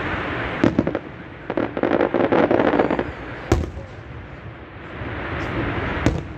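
Aerial fireworks display: shells bursting overhead, with a spell of dense crackling in the first half, a single sharp bang about halfway through and two quick sharp bangs near the end.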